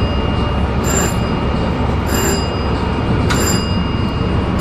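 Long Island Rail Road M3 electric multiple-unit train running on the rails: a steady low rumble with a short metallic ringing about every 1.2 seconds and a thin, steady high whine.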